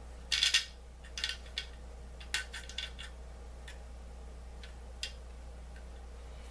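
Small plastic toy parts clicking and clattering as wheels are pushed onto the axles of a toy vehicle: a quick run of clicks about half a second in, two more short clusters, then a few single ticks, over a steady low hum.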